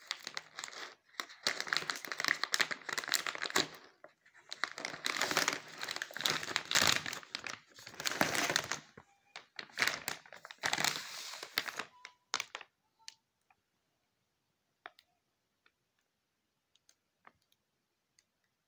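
Glossy foil packaging bag crinkling as hands grip it and pull it out of a cardboard box, in three long bursts over about twelve seconds, followed by a few faint ticks.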